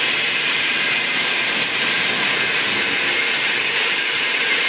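Drawer slide guide roll forming machine running with its hydraulic unit: a steady, loud hissing machine noise with no breaks.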